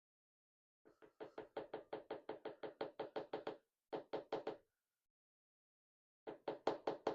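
Rapid light tapping on a hard surface, about seven taps a second, in three runs that stop and start, made while a Medeco lock core is being taken apart.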